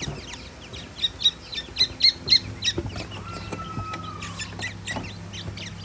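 Newly hatched francolin chicks peeping: short, high cheeps, coming about four a second around two seconds in, with one longer, lower note just past the middle.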